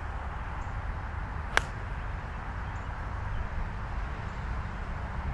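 A single crisp click of an iron's clubface striking a golf ball, about a second and a half in, over a steady low rumble.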